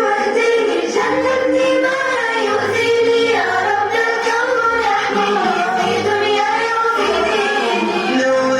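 An Arabic children's song: voices singing together in unison over a steady low bass accompaniment.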